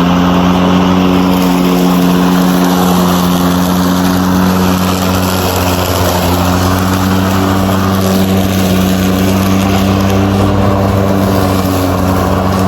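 Greenworks Pro 80-volt battery-powered lawn mower running steadily: an even electric motor hum with the rush of the spinning blade.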